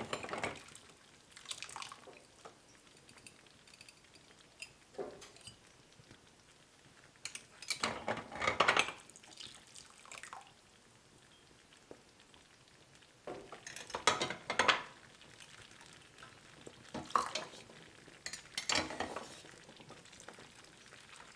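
Spoon scraping and clinking against a cooking pot in short bursts every few seconds while stirring thick, simmering mirabelle jam.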